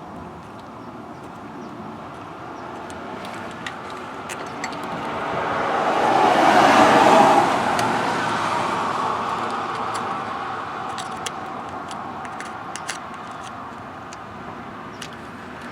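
A road vehicle passing by: a rising and falling road noise that peaks about halfway through and fades away, with scattered small clicks.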